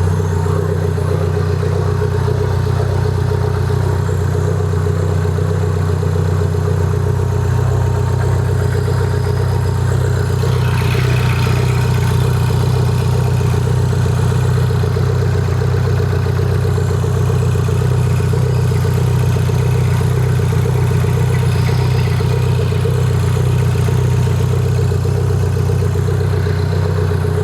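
Mini Cooper S's swapped-in turbocharged four-cylinder engine running at a steady speed, with a constant low hum and no revving.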